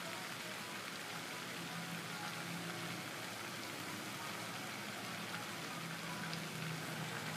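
Pond spray fountain's water falling back onto the pond, a steady rain-like hiss, with a faint low hum coming and going underneath.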